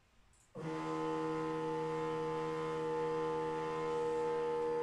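CNC mill's Y-axis drive making a steady 20 inch-per-minute traverse. It starts suddenly about half a second in and runs as an even whine made of several steady tones.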